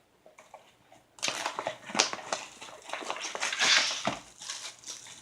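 Plastic packaging crinkling and crackling as it is handled and opened, a dense run of crackles and clicks starting about a second in.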